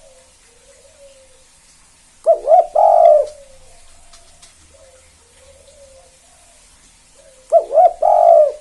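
Spotted dove (tekukur) cooing its 'kuk 2' song: two phrases about five seconds apart, each two short quick notes followed by a longer drawn-out coo, with softer low coos in between.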